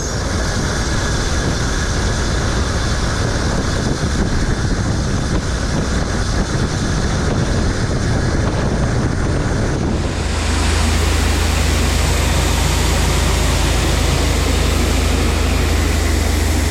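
Combine harvester running in the field: a loud, even rushing machine noise. A strong, steady low hum joins it about ten seconds in.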